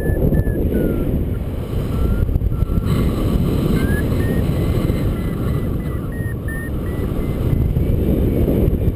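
Wind buffeting the microphone in flight under a paraglider, with a variometer's electronic beeping tone stepping up and down in pitch. About four seconds in the tone jumps higher and stays there, the sign of the glider climbing in lift.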